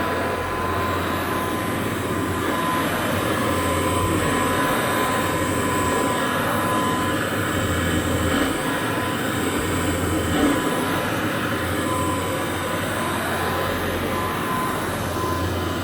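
Rebuilt 1957 Kirby Model 517 upright vacuum cleaner running steadily while vacuuming, a constant motor-and-fan noise with a thin steady whine.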